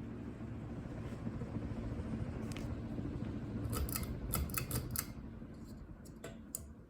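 Unbranded 52-inch Emperor-style ceiling fan humming steadily on high speed in reverse. A quick cluster of sharp clicks comes near the middle and two more near the end, and the hum grows fainter toward the end.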